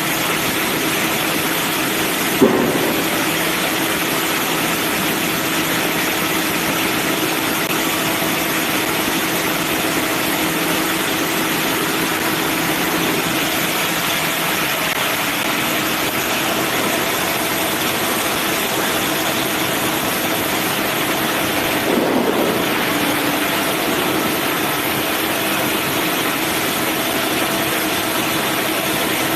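Bandsaw sawmill running steadily with a constant hum, with two brief sharp sounds, one a couple of seconds in and one about 22 seconds in.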